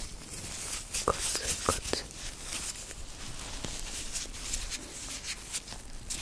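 White rubber gloves rubbing and squeaking close to the microphone as gloved fingers move against each other, an irregular crackle of rubber sounds. Two sharper snaps stand out about a second in and just before two seconds.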